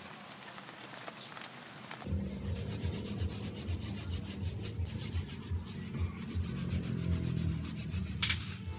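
Scratchy rubbing and rustling close to the microphone, faint at first and louder and deeper from about two seconds in, with many small irregular ticks, and a short whoosh near the end.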